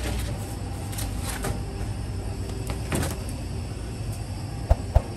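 Steady low hum of a rotating bread oven turning, with light scrapes as baked barbari loaves are lifted off its deck. Two sharp knocks near the end.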